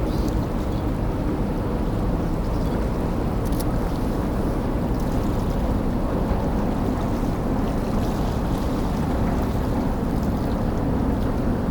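Steady low rumble of a car ferry under way, with water wash and wind noise on the microphone.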